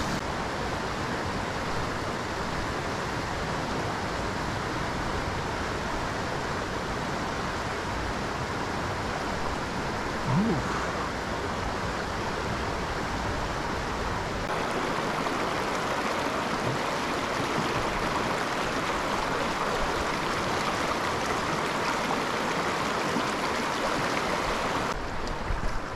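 Small creek running over rocks: a steady rush of flowing water, its tone shifting about halfway through.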